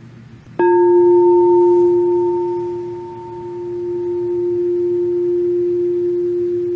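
Crystal singing bowl struck once with a mallet about half a second in, then ringing on with one steady tone that slowly wavers in loudness, a fainter higher overtone dying away first. It is rung as the cue to take a deep breath and release.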